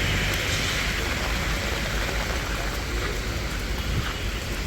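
Heavy rain falling steadily: a continuous hiss of rain on wet streets and surfaces, with a low rumble underneath.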